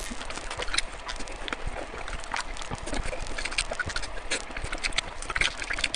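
Close-miked wet chewing and lip smacking of glazed braised pork belly, a quick run of sticky mouth clicks.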